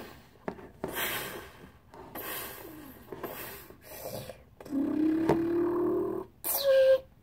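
Soft rubbing and scraping as a plastic Godzilla figure is handled and set down on a table. Then, a bit over halfway through, a boy's voice gives one long, slightly rising call of about a second and a half, followed by a short, higher cry.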